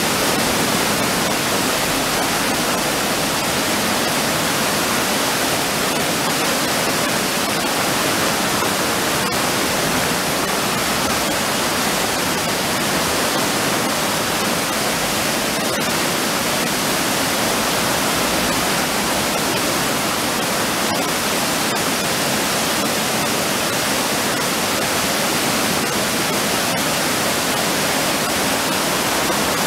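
Steady rush of a river pouring over a low stepped weir.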